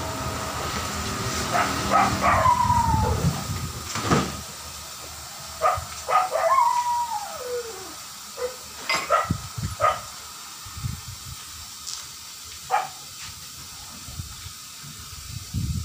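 Heavy truck tyres rolled across a concrete floor, a low rumble for the first few seconds, followed by a series of short high squeaks, some sliding down in pitch, and sharp knocks.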